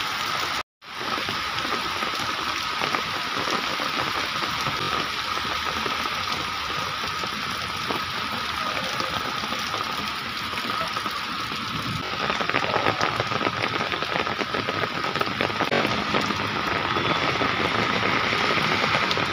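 Heavy rain pouring down on a road, a dense, steady hiss of falling rain and running water. The sound drops out for a split second just under a second in.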